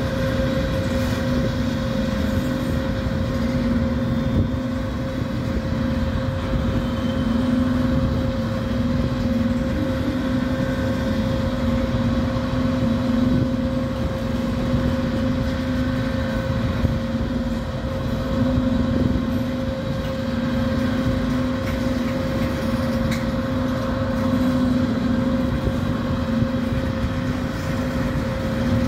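Freight train cars (tank cars, gondolas and covered hoppers) rolling past close by: a continuous rumble of steel wheels on rail with a steady tone and a lower hum that wavers in strength.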